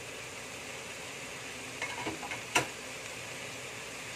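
Vegetable filling sizzling steadily in a hot wok, with a few clicks and scrapes of a wooden spatula and a metal ladle against the wok a little under two seconds in, and one sharp clack about half a second later.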